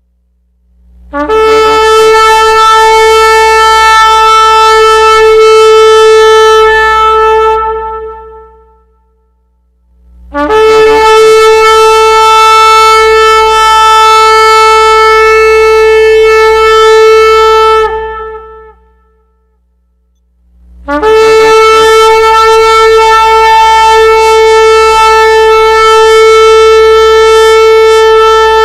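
Shofar (ram's horn) sounded in three long, steady blasts on one note, each lasting about seven seconds with a short pause between them.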